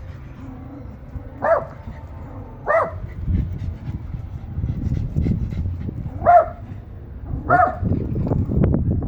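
A dog giving four short barks in two pairs, over a steady low rumble.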